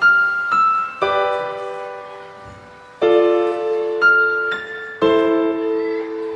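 Background piano music: slow notes and chords struck about once a second, each ringing out and fading before the next.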